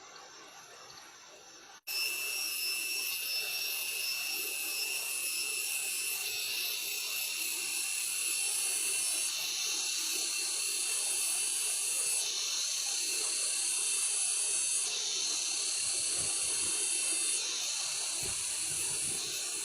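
Loud, steady, high-pitched insect drone, a chorus of cicadas, starting abruptly about two seconds in and swelling and easing in steps every few seconds.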